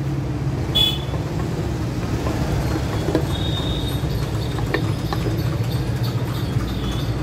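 Steady low background rumble, with a few light clicks and knocks as the aluminium clutch cover is pressed onto the Hero Splendor Pro engine case.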